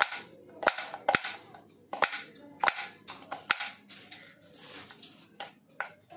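Kitchen knife slicing a peeled red onion on a bamboo cutting board: the blade knocks on the board in an uneven run of sharp taps, about two a second.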